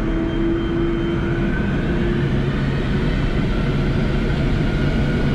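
Boeing 747-400's jet engines spooling up for the takeoff roll, heard inside the cockpit: a steady rumble and hiss with faint whining tones that step up in pitch, growing slightly louder.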